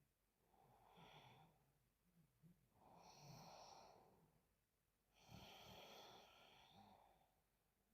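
A sleeping woman snoring quietly: three noisy breaths about two seconds apart, each one longer than the last.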